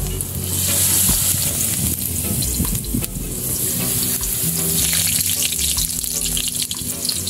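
Batter-coated kangkong (water spinach) leaves deep-frying in hot oil in a wok, sizzling steadily. The hiss swells twice as more leaves are dropped into the oil.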